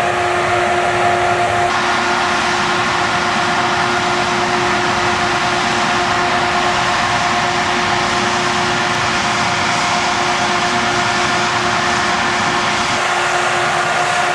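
Steady blowing and hissing from a fan-type water cannon (snowmaking gun) spraying mist, with a constant motor hum underneath.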